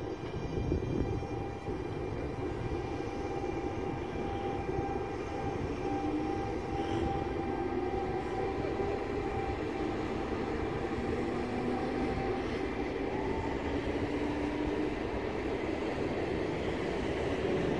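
Electric regional train of a Trenord E464 locomotive and double-deck coaches moving off through a station: a steady rumble of wheels on rail with a motor whine that rises a little in pitch as it gathers speed.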